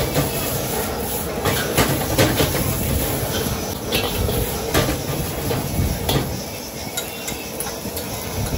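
Street-stall cooking: a steady gas burner roar with irregular metal clanks and knocks of utensils against pans.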